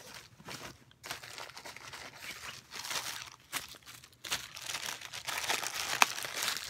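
Clear plastic packaging bag crinkling and rustling as it is handled and pulled open around a slide sandal, with a single sharp click near the end.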